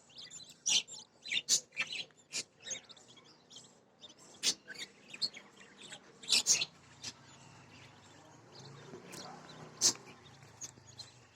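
Budgies chirping in short, scattered calls, a few of them sharper and louder than the rest.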